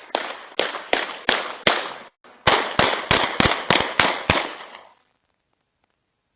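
Two rapid volleys of loud, sharp explosive bangs, about three a second, each with a short echoing tail: about six bangs, a pause of under half a second, then about seven more.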